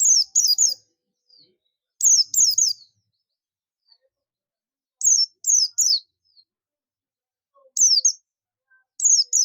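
A buxtoni white-eye (Zosterops) calling in 'ngalas' style: five short bursts of two to four high, quick, down-slurred chirps, a few seconds apart.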